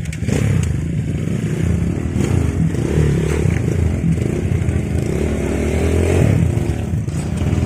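Dirt bike engines running and revving in the river, their pitch rising and falling, with a rise in revs about six seconds in.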